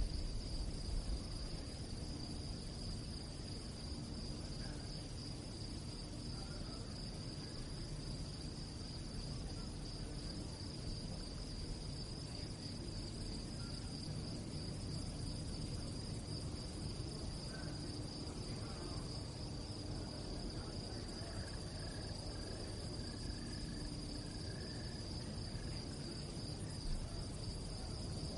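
Crickets singing: a steady, continuous high-pitched trill over a low background hum.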